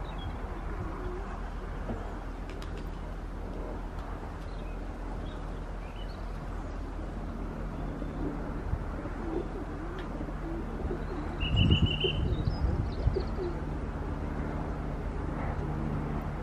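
Racing pigeons cooing over a steady low hum, the cooing thickening in the second half. A few louder low thumps come about twelve seconds in, together with a short high trill.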